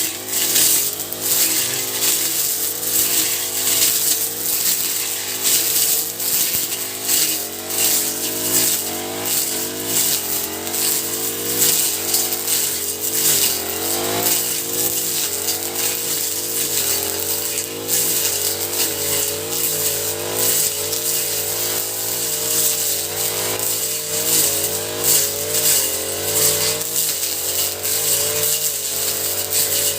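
Honda four-stroke brush cutter (grass cutter) engine running, its pitch wavering up and down about once a second, with a steady high hiss over it.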